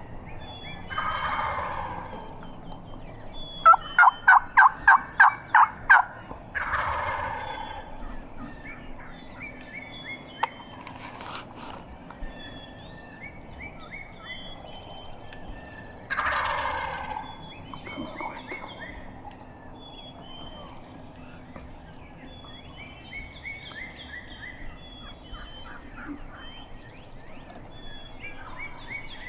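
Wild turkey gobbler gobbling three times, each gobble a loud rattling call about a second long. Between the first two gobbles comes a quick run of about nine loud turkey yelps, and small birds chirp faintly throughout.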